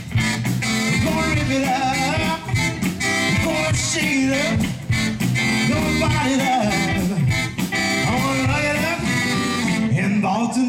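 Live rock and roll band playing an uptempo number, with saxophone and keyboard in the mix.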